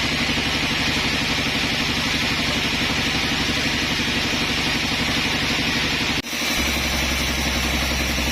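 Sawmill machinery running steadily: a pulsing engine-like drone with a hiss above it. About six seconds in it breaks off abruptly and gives way to a lower, steadier hum.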